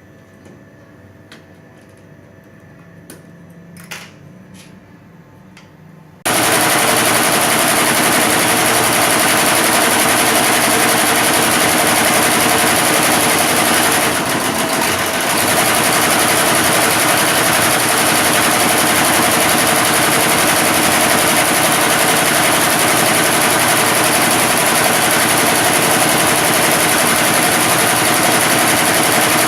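Computerized embroidery machine starting up abruptly after a few quiet seconds with a couple of faint clicks, then stitching at speed: a loud, rapid, steady needle clatter that dips briefly about halfway through.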